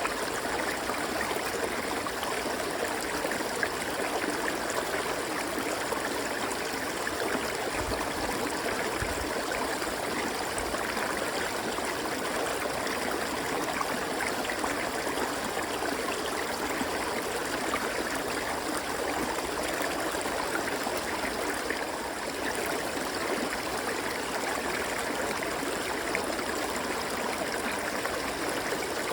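River water flowing over rocks: a steady rush of babbling and splashing.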